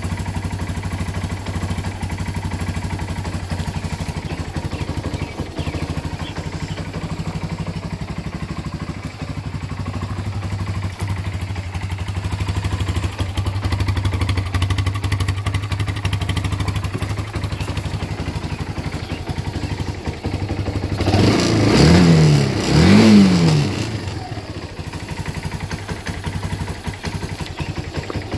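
Kawasaki Bayou 250 ATV's air-cooled single-cylinder four-stroke engine idling steadily, revved up twice in quick succession about three quarters of the way through, then settling back to idle.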